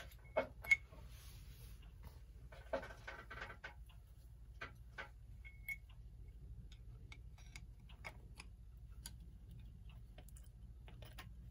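Small, irregularly spaced clicks and taps of metal clock-movement parts being handled and fitted together during reassembly, the two sharpest in the first second, over a faint steady low hum.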